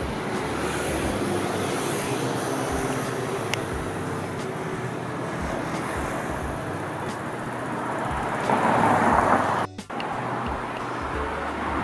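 Background music over a steady noise of passing traffic, swelling briefly about three-quarters of the way through and cutting out for an instant just after.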